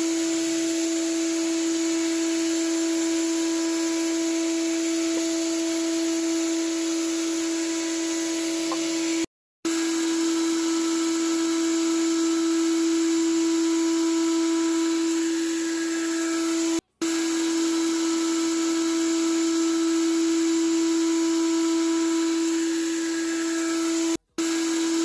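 CNC wood-turning lathe running steadily: a constant motor whine over the hiss of the cutting. It drops out to silence for a moment three times.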